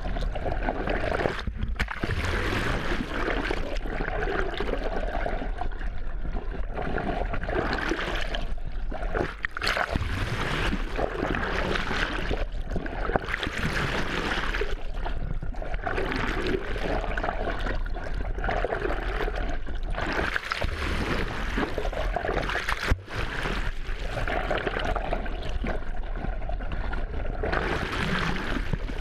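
Continuous rush and slosh of seawater around an underwater GoPro camera held just below the surface, muffled through its waterproof housing.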